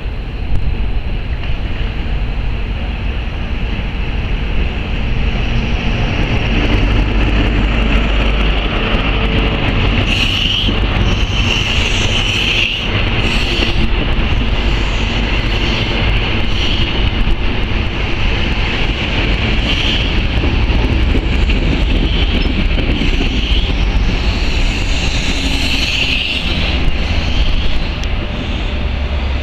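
GWR InterCity 125 High Speed Train running through the station at speed: the diesel power car comes in with a heavy rumble, then the Mark 3 coaches pass close by with a continuous rush of wheel and rail noise and a steady high hiss.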